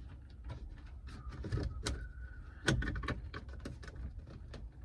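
Plastic door-panel trim and its wiring being handled and pressed into place in a car door: a run of irregular clicks and taps, the loudest nearly three seconds in.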